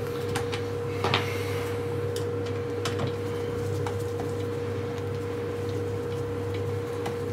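A few faint metallic clicks of an Allen key working the securing bolts out of a multi-tool's recoil housing, over a steady electrical hum.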